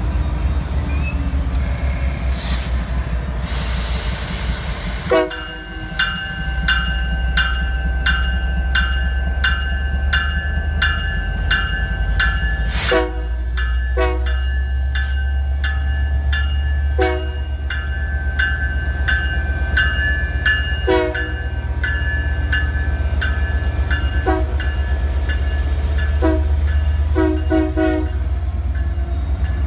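Union Pacific diesel locomotives (SD59MX and SD70AH) running slowly past at close range with a deep, steady engine drone. About five seconds in, a locomotive bell starts ringing at about two strikes a second and keeps on. Several louder clanks come through in the second half.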